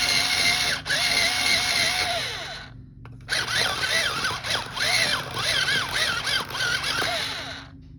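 Electric pencil sharpener running as a colored pencil is pushed in, its motor whine wavering up and down under the load. It stops about three seconds in, starts again half a second later, and stops near the end.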